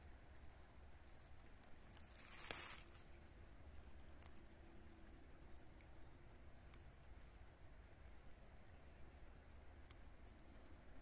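Faint small clicks and scrapes of a blade shaving the outer bark off a purple mulberry scion down to the green wood, with one louder brief scrape about two and a half seconds in.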